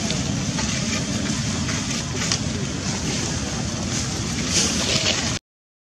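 Wind noise on the microphone: a steady low rumble and hiss with a few faint rustles, which cuts off suddenly near the end.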